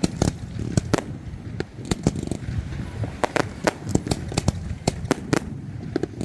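Fireworks display: a rapid, irregular string of sharp bangs and crackles, several a second, over a low rumble.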